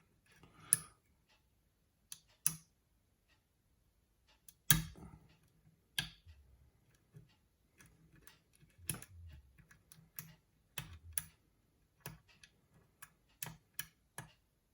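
Lock pick and tension wrench working the pin tumblers of a challenge lock, giving sharp irregular clicks as serrated pins catch and set.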